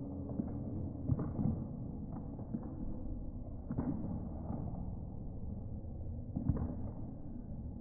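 Several thuds at irregular intervals from a gymnast's feet landing on a balance beam, over the steady background hum of a gym.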